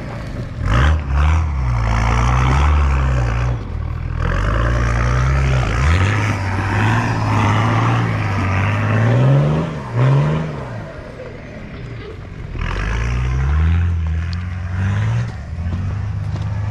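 Turbo-diesel 4WD engine revving up and down repeatedly under load as the vehicle climbs a rocky, loose hill track, with tyres scrabbling on rock and gravel. It eases off for a moment about two-thirds of the way through, then picks up again.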